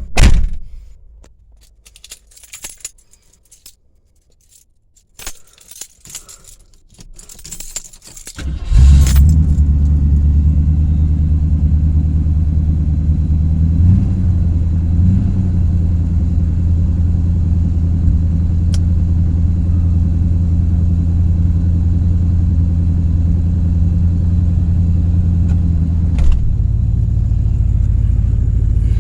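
Keys jangling and scattered clicks, then about nine seconds in a 1978 Ford Mustang's engine starts and runs steadily, its carburetor freshly repaired for vacuum leaks. It gives two brief small revs around fourteen seconds, and near the end a click comes and the engine note changes.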